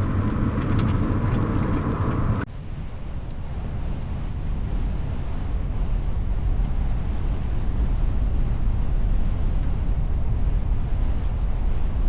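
Vehicle road and engine noise heard from inside a moving car, a steady low rumble. About two and a half seconds in, a louder, hissier stretch with scattered sharp clicks cuts off abruptly, and the rumble carries on alone.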